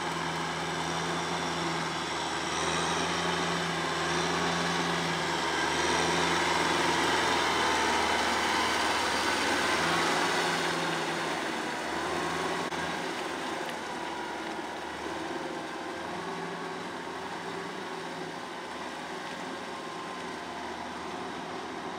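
Kubota M6040SU tractor's diesel engine running steadily under load as it pulls a rotary tiller through wet paddy mud. It is loudest about six to ten seconds in, then eases off.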